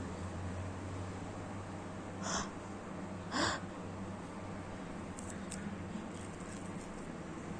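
Two short sneezes about a second apart, the second louder, in a bout of repeated sneezing.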